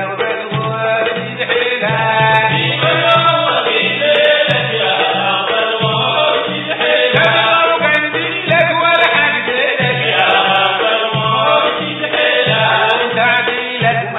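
Sudanese Sufi madeeh, a praise song for the Prophet, sung by a group of men's voices together over a steady low beat.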